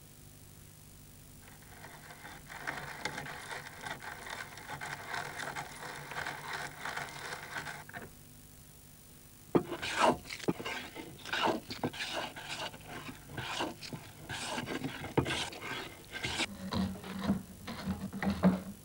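Wooden hand plane cutting wood: from about halfway in, a run of sharp, irregular rasping strokes, each a blade taking a shaving.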